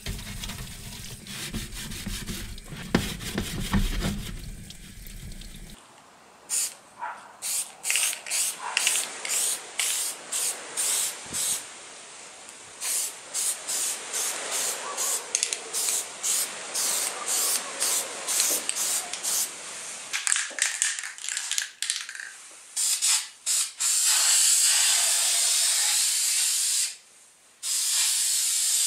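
Tap water running onto a plastic car grille in a sink for about the first six seconds. Then an aerosol spray can of primer is sprayed on the grille in many short bursts, about two a second, and in longer continuous sprays near the end.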